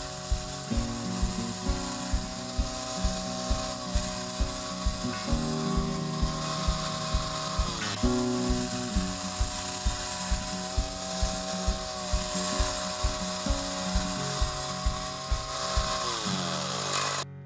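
Background music with a steady beat over a portable gas-engine bandsaw mill running through a cut in a log. The engine note dips briefly partway through and falls away near the end.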